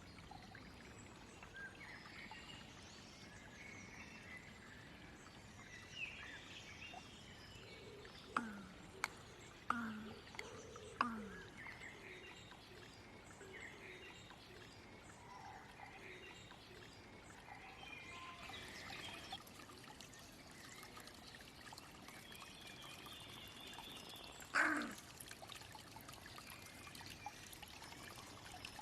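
Carrion crow making short knocking, clicking calls, each a sharp click that drops quickly in pitch. There are four in a quick cluster about a third of the way in and a single louder one near the end, all faint.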